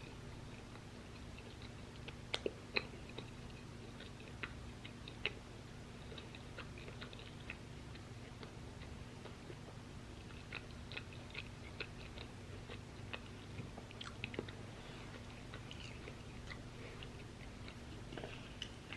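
Close-miked chewing of crunchy waffle fries: irregular crisp crunches and mouth clicks, a few sharper bites about two to three seconds in, around five seconds and near fourteen seconds. A steady low hum sits underneath.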